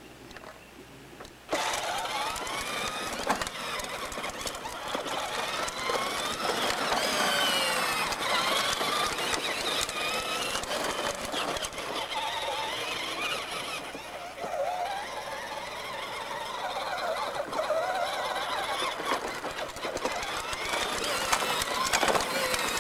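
Power Wheels Bigfoot battery ride-on truck driving: its electric motor and plastic gearbox whine, wavering in pitch, switching on suddenly about a second and a half in and running on.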